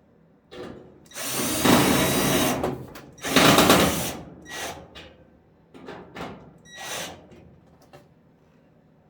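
Power drill/driver run in bursts: two longer runs of a second or more, then several short trigger pulls.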